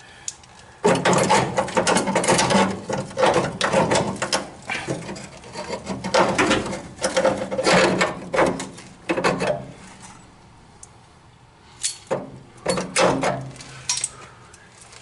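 Handheld power tool working on the rusted steel cab mount of a 1966 Ford F100 in loud, uneven bursts. It starts about a second in and runs for several seconds, then two shorter bursts come near the end.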